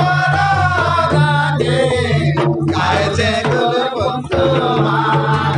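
Men singing a Karma festival folk song into a microphone through a loudspeaker, with drum accompaniment.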